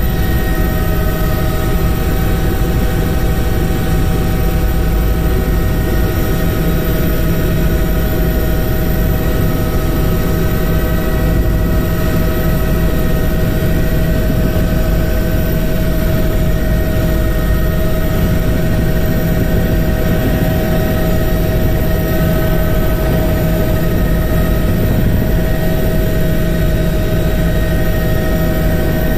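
A steady mechanical drone: a loud low rumble with several constant humming tones above it, neither rising nor falling.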